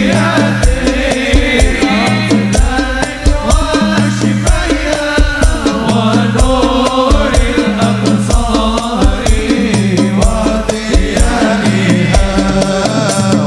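Sholawat devotional music: voices singing over a driving hadroh percussion rhythm with heavy bass.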